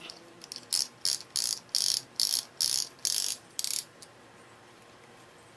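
Adjustable piston ring compressor being ratcheted tight around a piston, squeezing its rings: about eight short ratcheting rasps, two or three a second, that stop about four seconds in.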